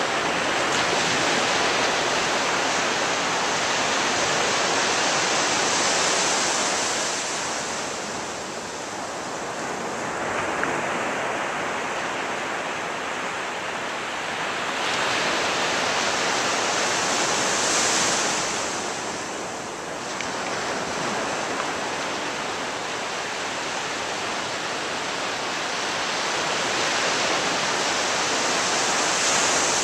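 Ocean surf breaking on a beach: a steady wash of waves that swells louder three times, about twelve seconds apart, as each wave breaks and then recedes.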